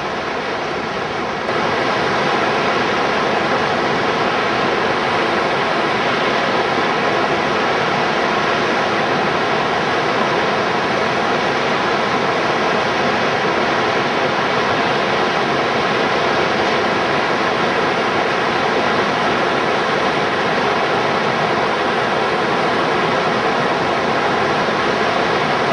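Steady rush of whitewater from a river standing wave and its rapids, a little louder from about a second and a half in.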